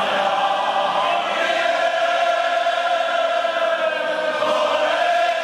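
Large group of men singing a Moravian folk song together in chorus, holding long drawn-out notes.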